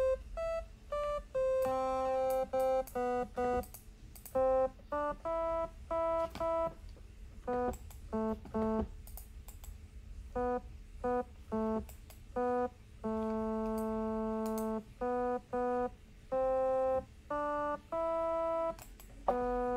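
Synthesizer notes from a BeSpoke Synth software oscillator, played live from a MIDI keyboard: short separate notes at a few different pitches in an uneven rhythm, with one longer held note about two-thirds of the way through.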